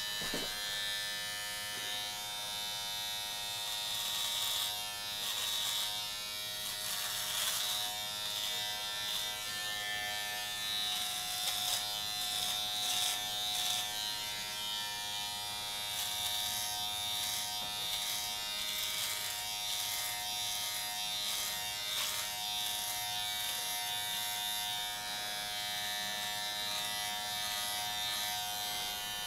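Philips Norelco MG9000 Prestige trimmer with its body-hair attachment and skin guard buzzing steadily as it is run over chest hair. Brief crackles come again and again as it cuts.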